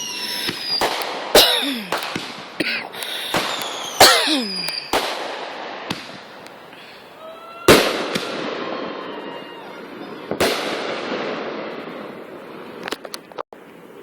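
Consumer fireworks going off: a quick run of sharp bangs in the first few seconds, with whistles falling in pitch, then two louder bangs about eight and ten and a half seconds in, each followed by a long fading crackle. A few small pops come near the end.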